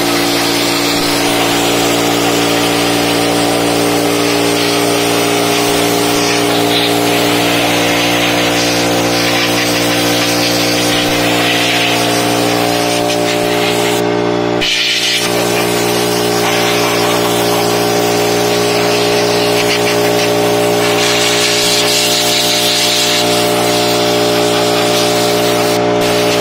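Stanley air compressor running steadily, with the hiss of an air blow gun coming and going as it blows dust out of a desktop PC case. There is a brief break in the sound near the middle.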